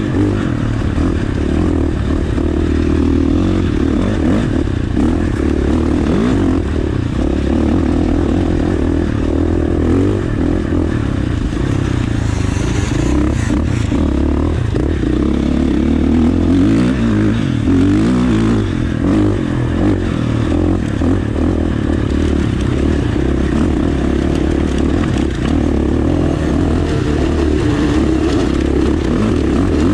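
2019 KTM 450 XC dirt bike's single-cylinder four-stroke engine running continuously under varying throttle as the bike is ridden over rocky trail, heard from the rider's helmet.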